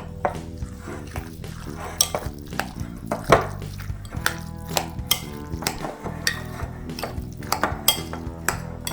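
A spoon stirring and clinking against a dish, with scattered sharp clinks over quiet background music.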